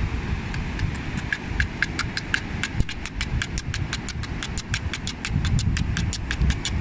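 Seashells clicked together by hand in a fast, steady rhythm, about five or six sharp clicks a second, over a low rumble of wind and surf.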